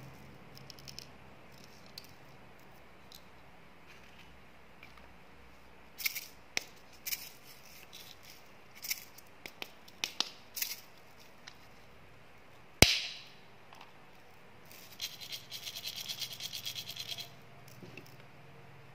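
Plastic clicks and taps from a small can-shaped candy container being worked open, one sharp snap about two-thirds of the way through as its cap comes off, then a quick, even rattle of tiny hard candy pellets shaken out into a palm for about two seconds.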